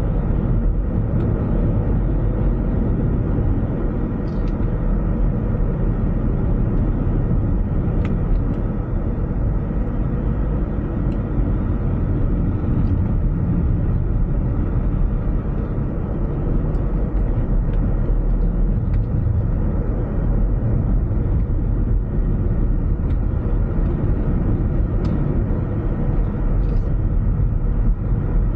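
A car driving at a steady pace: a continuous low rumble of engine and road noise, with a few faint ticks scattered through it.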